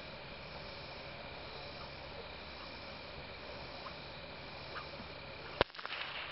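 A single sharp whip crack about five and a half seconds in, followed by a brief rattle, against a steady background drone.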